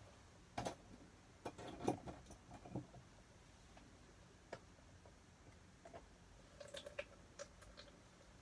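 Faint, scattered clicks and light knocks over quiet room tone: a group in the first few seconds, a single one about halfway, and another group near the end.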